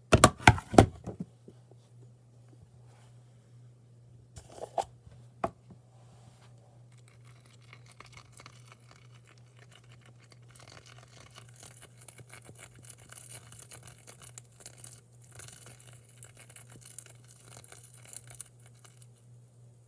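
Slime being worked by hand. There are loud sticky pops and squelches at the start and two more a few seconds in, then a long stretch of soft crackling and squishing.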